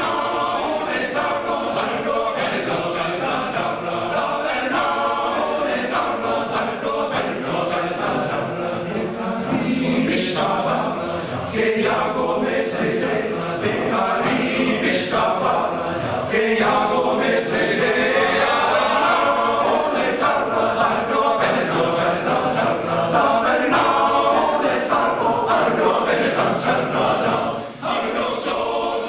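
A large male chorus singing, with a brief break in the sound near the end.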